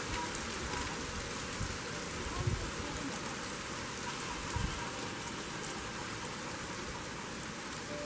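Steady typhoon rain falling, an even hiss with many fine drop ticks, and a couple of brief low thumps about two and a half and four and a half seconds in.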